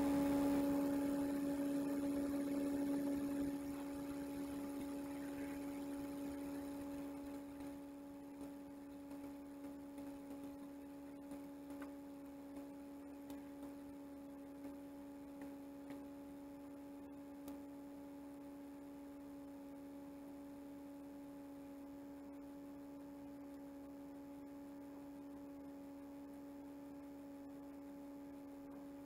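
A steady hum at one pitch with a fainter higher overtone, louder for the first few seconds and then settling lower, with a scattering of soft ticks in the middle.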